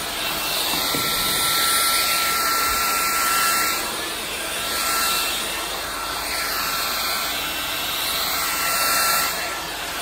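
Jimmy JV83 cordless stick vacuum running on the highest of its three power levels: the rush of suction with a steady whine from its 500 W digital motor, as the motorized brush head is pushed back and forth over carpet. The sound swells and eases every couple of seconds with the strokes.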